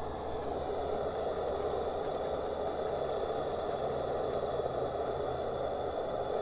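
Steady hiss of steam from a coal-fired live-steam miniature locomotive standing with its fire built up, with a low steady hum underneath.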